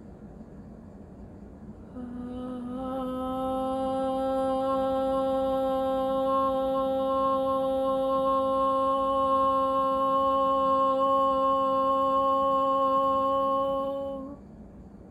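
A woman humming one long, steady note, starting about two seconds in and stopping shortly before the end.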